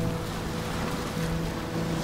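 Sea waves breaking and washing over shoreline rocks, a steady rush of surf, with soft held notes of ambient music underneath.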